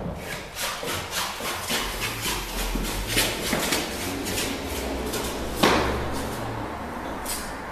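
Footsteps going down concrete stairs, about two steps a second, with one louder knock a little over five seconds in.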